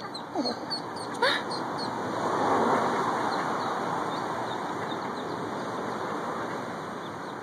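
Mallard ducklings peeping: short, high, thin cheeps scattered through. Under them runs a steady rushing noise that swells about two seconds in and then slowly fades.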